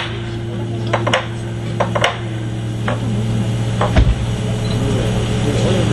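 Scattered sharp clicks and knocks, about eight, at irregular intervals, over a steady low hum.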